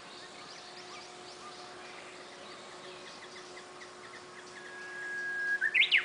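Japanese bush warbler (uguisu) singing its hō-hokekyo song: a long, steady whistle that swells in loudness, then a quick flourish of higher notes near the end.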